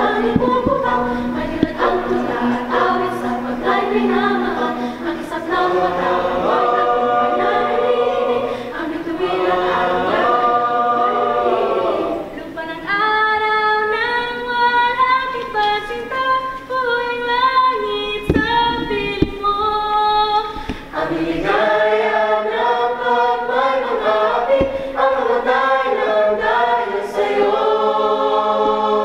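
Mixed choir singing a national anthem unaccompanied, in held harmonised notes; the voices climb higher through the middle of the passage.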